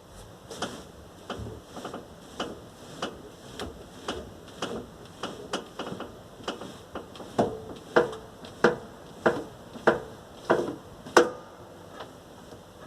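Knocking under the hood of a 1997 VAZ 21099 as the steering wheel is turned: a regular series of sharp knocks, about three every two seconds, louder in the second half and stopping about eleven seconds in. The owner suspects a worn steering rack.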